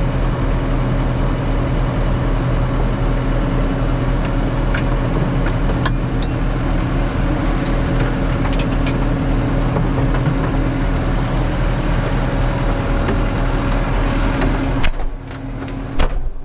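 Tractor engine running steadily under load, then dropping away sharply near the end, with two sharp knocks just after.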